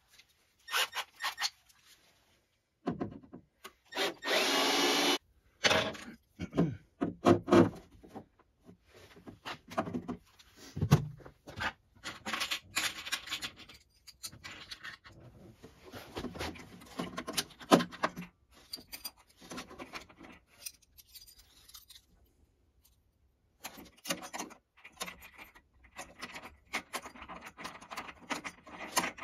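Cordless drill running for about a second, drilling a mounting hole in the battery box for a battery disconnect switch. Around it come many short knocks, scrapes and rubbing sounds of parts and tools being handled.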